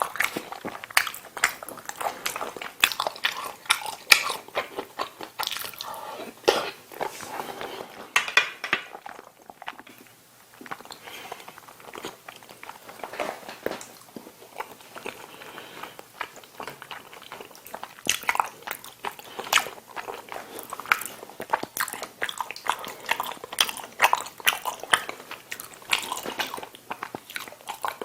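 Close-miked eating sounds: a person chewing and biting through a meal of kimchi stew, ramen noodles and curry rice, with many small wet mouth clicks and crunches. The chewing eases off briefly about ten seconds in, then carries on.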